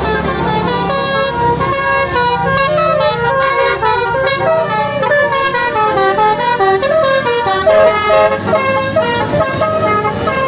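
Basuri-type telolet bus horn, a multi-tone air horn, playing a melody of quickly changing notes, loud and continuous. A low engine hum sits underneath in the first few seconds.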